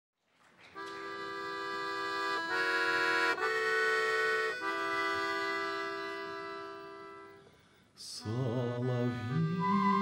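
Instrumental introduction to a song: steady held chords that shift a few times and then fade away. About eight seconds in, bowed strings with vibrato come in.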